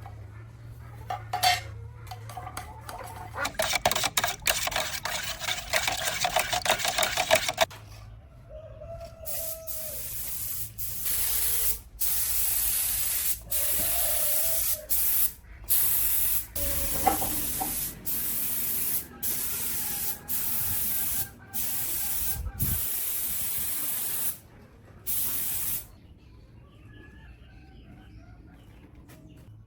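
Paint spray gun hissing in repeated bursts of one to two seconds, the trigger pulled and released again and again, after about four seconds of fast rattling.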